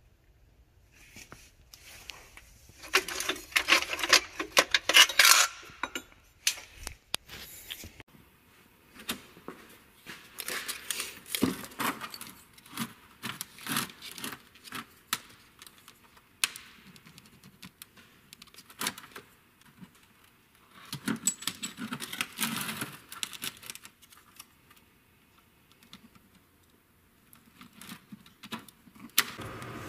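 Steel bar stock and hand tools clinking and clattering as they are handled, in three bursts of sharp metallic knocks, the loudest a few seconds in.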